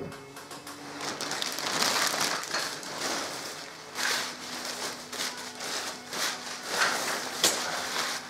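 Packing paper crinkling and rustling as it is crumpled and unwrapped by hand, the rustle swelling and fading in irregular bursts, with one sharp click near the end.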